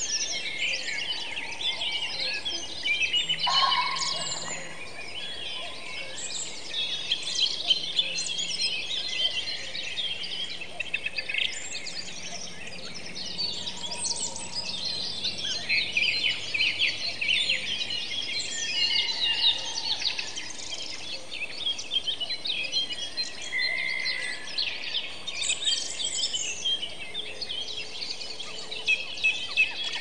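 Many birds singing at once, a dense chorus of overlapping high chirps.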